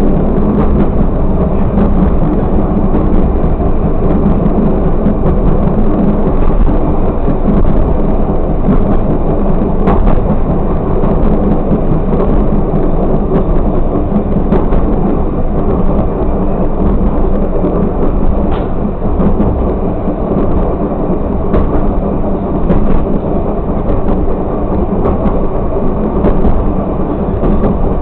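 Railcar running along the track, heard from inside the driver's cab: a steady drone and rumble, with a few sharp clicks here and there.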